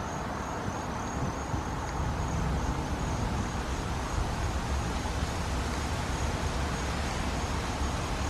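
Steady background of distant road traffic, with an insect chirping in a thin, high, pulsing tone.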